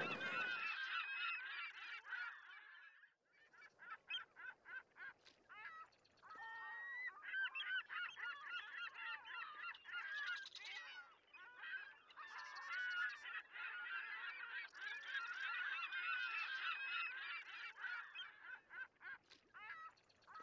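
A flock of geese honking, many short calls overlapping into a continuous chorus, with a brief lull about three seconds in.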